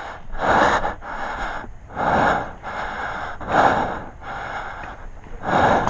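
Heavy, rhythmic breathing of a person exerting hard: four loud breaths about a second and a half apart, with quieter breaths between.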